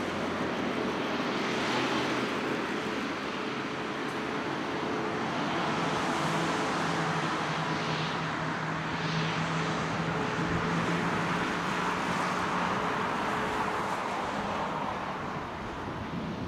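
Rolls-Royce Trent XWB engines of an Airbus A350-900 running at taxi power as the airliner rolls past: a steady jet rush with a low hum that comes in through the middle.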